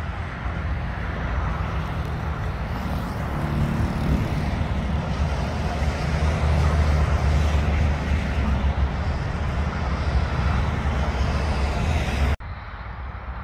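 Heavy diesel trucks driving past on a highway, a steady engine drone with tyre and road noise that builds to its loudest about halfway through as a container semi-trailer passes close. Near the end the sound cuts off suddenly and drops to quieter traffic noise.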